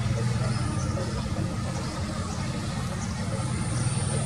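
Doosan excavator's diesel engine running steadily with a low, even drone.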